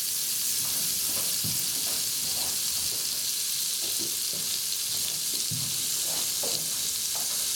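Butter sizzling in the hot inner pot of an electric pressure cooker: a steady frying hiss with scattered small pops.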